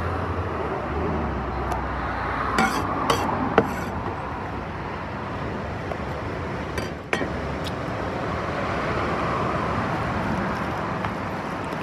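A cleaver scrapes and taps chopped bacon off into a plastic tub of guacamole, with a few sharp clinks about three seconds in and two more around seven seconds, then the bacon is stirred into the guacamole. A steady hiss runs underneath.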